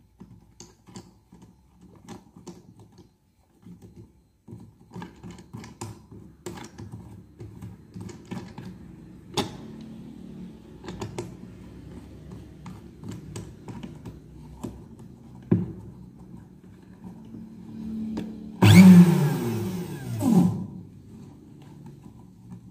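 Miyako blender base being handled: light clicks and knocks of plastic as the drive coupling is fitted onto the motor shaft. Near the end the motor runs in a short burst of about two seconds, then stops. It is running again after its broken aluminium winding wire was soldered.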